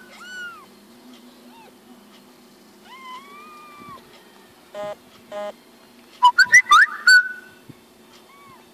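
Tiny tabby kitten mewing: several thin, high, arched cries, one held for about a second, with a louder run of quick rising chirpy calls about six seconds in and two short buzzy sounds around five seconds in.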